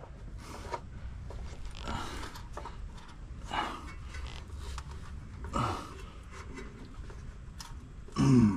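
A man's faint breaths and low grunts of effort as he screws a new metal drain plug into the truck's oil pan, over a low steady rumble. A short, louder grunt comes near the end.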